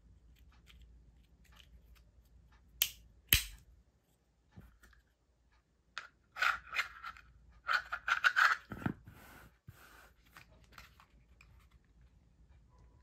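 Black plastic knife sheath and Tek-Lok style belt clip being handled and fitted together: two sharp clicks about three seconds in, then bursts of clicking and scraping plastic from about six to nine seconds in, with a dull knock near the end of them.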